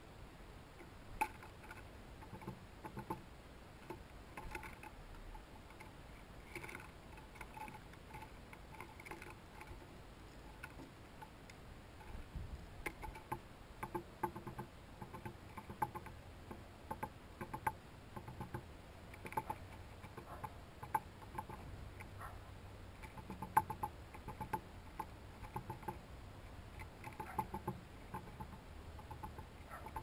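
A small songbird pecking at seed on a wooden board feeder: irregular light taps and clicks in quick clusters, more frequent in the second half.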